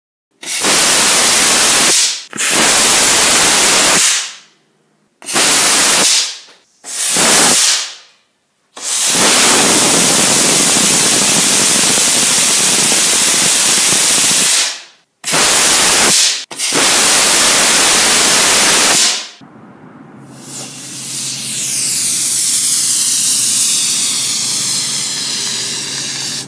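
Homemade potassium-nitrate sugar-propellant end-burner rocket motors firing: a loud, steady rushing hiss in several separate bursts that cut off sharply, the longest about six seconds. Near the end a motor carries a rocket aloft, its hiss swelling and then slowly fading as it climbs away.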